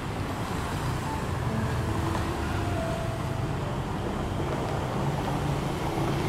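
Street traffic noise: a steady hum of passing cars.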